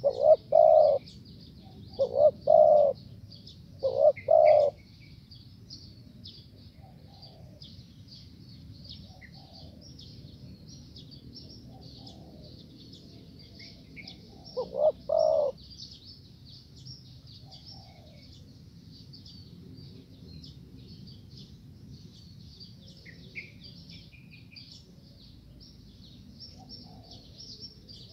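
Spotted dove cooing in low, rolling phrases: three in the first five seconds and one more about fifteen seconds in. A steady high chirping runs underneath throughout.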